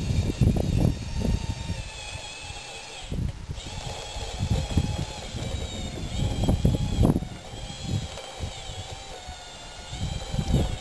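Whine of a radio-controlled model bulldozer's electric drive motors and gearboxes as it drives and pushes dirt, the pitch shifting as the throttle changes. Irregular low rumbles run underneath, loudest near the start and again about six seconds in.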